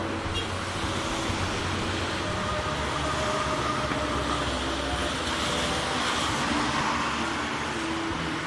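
Heavy rain pouring steadily, with a low steady hum of vehicle engines or traffic underneath.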